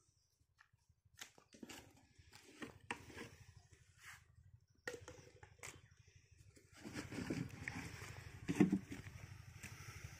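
Faint, steady low engine hum underneath scattered rustling, scraping and footsteps in dry soil as a suction hose is handled. The handling grows louder about seven to nine seconds in.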